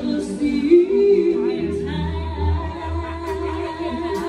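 Live band music played through a PA system, with a woman singing a slow melody. A bass line comes in about a second and a half in, and there are a few sharp taps.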